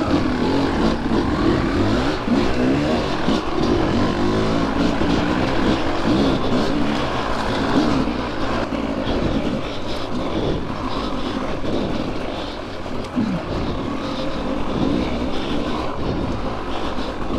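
Single-cylinder two-stroke engine of a KTM 300 XC-W dirt bike, heard from the bike itself as it is ridden, the pitch rising and falling repeatedly as the throttle is opened and closed.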